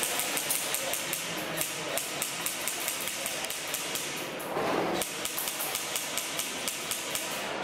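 Airsoft gun firing rapid single shots, about five sharp cracks a second, with a short rush of noise about halfway through.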